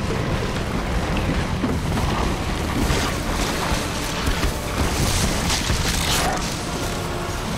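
Film sound effects: a deep, continuous rumble with a rushing noise that swells into loud hissing whooshes about three seconds in and again around five to six seconds, under faint orchestral score.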